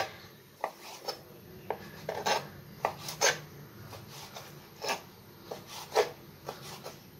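Kitchen knife slicing a cleaned squid tube into rings on a wooden cutting board: about ten short, sharp knocks of the blade meeting the board, irregularly spaced, with a pause of over a second midway.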